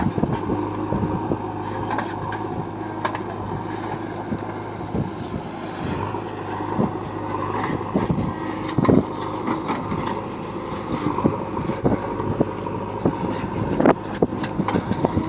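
JCB backhoe loader's diesel engine running steadily at work, with irregular knocks and clanks throughout.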